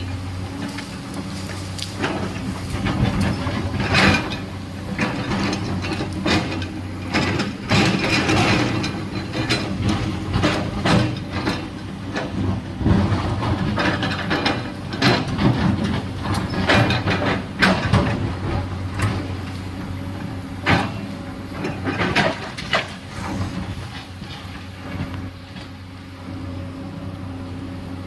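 Excavator digging into a hillside: diesel engine running under irregular clanks, knocks and scraping of the bucket against rock and soil, thinning out near the end.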